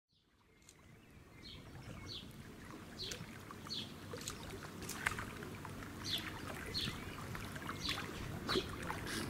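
Faint water lapping and trickling with short, regularly repeated high bird chirps, fading in from silence over the first two seconds.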